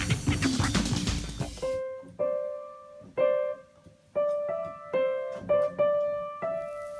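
Upright piano keys pressed one at a time by a cat's paws: about eight slow, irregular single notes in the middle range, each struck and left to fade. A loud, noisy jumble fills the first couple of seconds before the notes begin.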